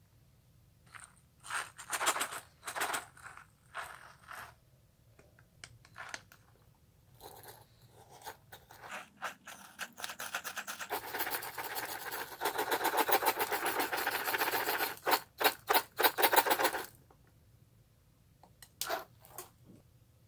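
Glossy slime being squished and worked by hand, making separate sticky pops and squelches. About halfway in it breaks into a dense run of rapid tiny crackles for several seconds, then goes back to a few louder pops.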